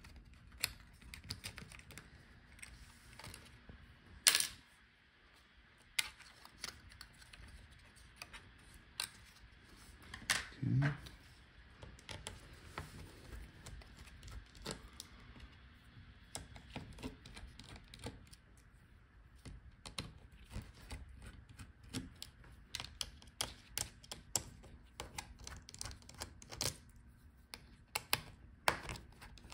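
Irregular small plastic clicks and taps as laptop ribbon-cable connectors are unlatched and worked loose from the motherboard with fingers and a small tool, with one sharper click about four seconds in.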